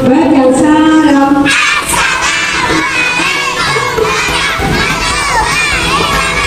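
A group of young children shouting and cheering together, many high voices overlapping. A single lower voice holds one long note for the first second and a half.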